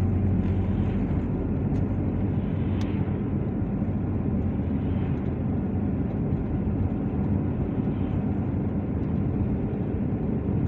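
Steady engine and tyre drone heard from inside a car cabin while driving at road speed, a dense low rumble with no sudden changes.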